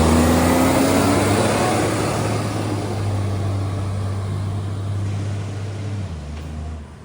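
Garbage truck engine pulling away, its note rising and then fading as it drives off, until it drops away sharply about six seconds in. The truck has a loud exhaust leak.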